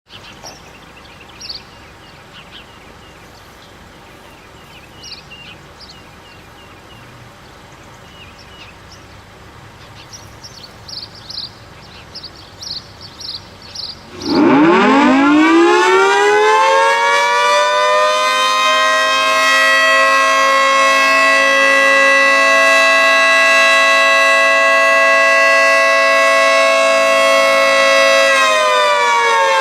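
1976 Federal Signal 2T22B two-tone omnidirectional siren sounding for its weekly test. It starts about halfway in, winds up quickly to a loud, steady two-tone wail, and begins to wind down near the end. Before it starts there is only a quiet background with faint short chirps.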